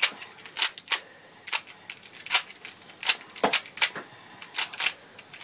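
Layers of a Dayan 3x3 speedcube being turned quickly while it is scrambled: about ten sharp plastic clacks at an uneven pace.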